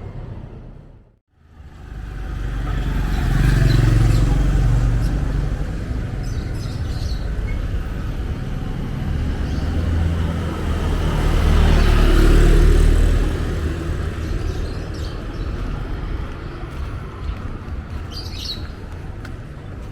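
Low rumble of vehicles passing, swelling twice, with birds chirping near the end.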